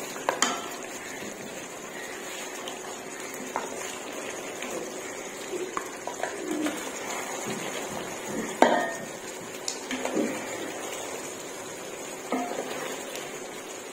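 A ladle scraping and knocking against a pot while chicken karahi in gravy is spooned out onto a plate, with scattered clinks and one louder knock a little past the middle.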